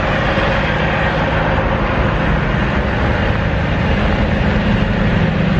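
Diesel semi-truck engine running steadily with a low hum under a dense noisy rumble.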